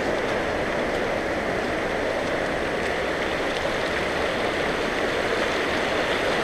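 Shallow mountain creek running steadily over rocks and stones.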